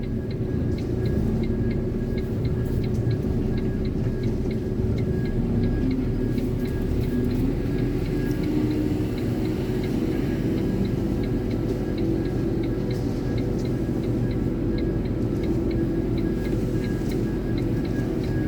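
Iveco concrete mixer lorry's diesel engine running at low revs, heard from inside the cab while it reverses. A faint electronic beep repeats at a regular pace over the engine.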